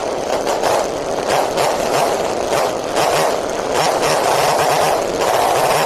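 Homelite Super 2 two-stroke chainsaw engine running steadily at idle, with a rapid even firing rhythm, while its carburetor is being tuned.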